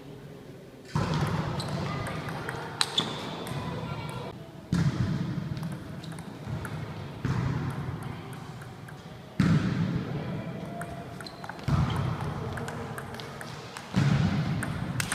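Table tennis rally: the ball clicks off bats and table, echoing in a large sports hall, with voices in the background.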